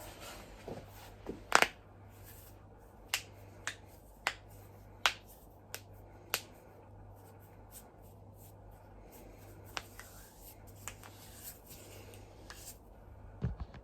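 Human joints being cracked: a string of sharp pops, the loudest a double crack about a second and a half in, then half a dozen single pops over the next five seconds, a few fainter ones later and a duller pop near the end.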